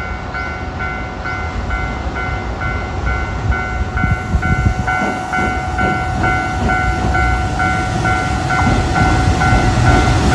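Japanese level-crossing alarm ringing its standard two-tone ding, about two and a half rings a second, over the rumble of a freight train hauled by an EF210 electric locomotive. The rumble grows louder from about four seconds in.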